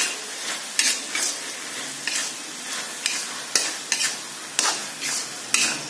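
Vegetables, meatballs and egg sizzling in a wok while a spatula stirs and scrapes them. Sharp scraping strokes come irregularly, about one a second, over a steady sizzle.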